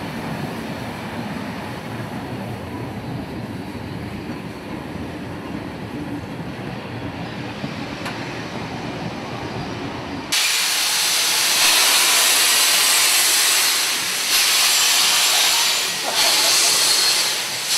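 Heritage railway carriages rolling slowly past with a steady low rumble. About ten seconds in this gives way abruptly to loud steam hissing from steam locomotive 3526, which eases briefly twice.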